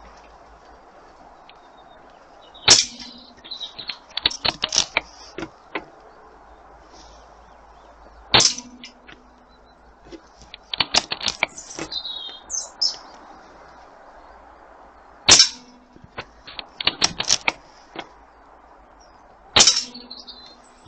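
Four air rifle shots, each with a sharp clang of the pellet hitting a steel knock-down target and a brief ring. After most shots comes a quick run of small metallic clicks.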